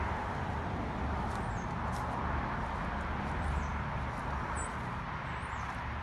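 Outdoor ambience while walking: footsteps over dry leaf litter and grass, a steady low rumble on the microphone, and a few short, faint, high bird chirps scattered through.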